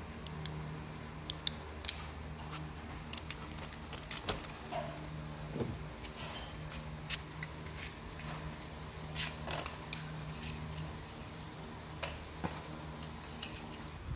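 Wooden matchsticks and cardboard matchboxes being handled: scattered light clicks, taps and rattles as matches are packed into a box, over a steady low hum.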